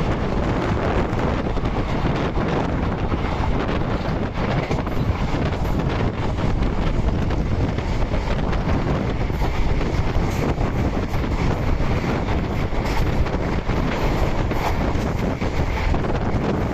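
Indian Railways passenger coach running at speed, heard from an open door or window: a steady rumble of wheels on the track, with wind buffeting the microphone.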